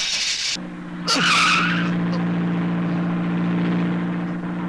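A car engine takes up a steady low drone about half a second in, after a short hiss. A brief tyre squeal comes about a second in as the car pulls away.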